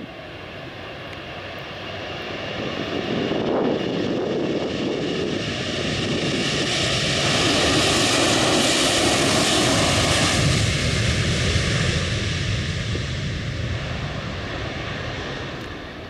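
Boeing 767-300ER twin-engine jet airliner's turbofan engines at take-off power during its take-off roll. The jet noise grows, is loudest with a strong hiss about halfway through as the aircraft passes, then fades as it rotates for lift-off.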